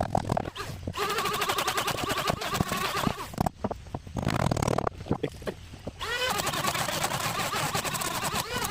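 A motor running in two spells. The second spell starts with a quick rise in pitch as it speeds up, then holds steady.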